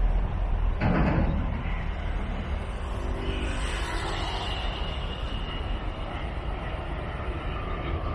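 Boeing 787-10 airliner on landing approach: a steady distant jet-engine rumble, mixed with wind buffeting the microphone. A brief rush of noise comes about a second in.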